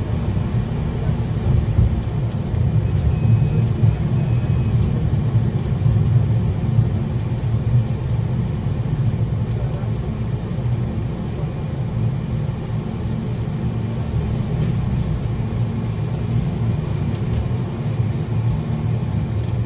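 A 71-932 "Nevsky" tram running along the line, heard from inside the passenger cabin: a steady low rumble of wheels on rails and the running gear.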